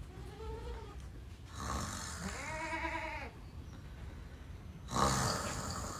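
A person snoring in their sleep: two whining out-breaths that rise and fall in pitch, with noisy, rasping breaths between them.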